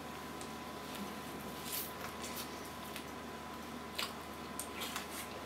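Faint wet biting and sucking on a raw lemon wedge, with a few small clicks, over a steady background hiss.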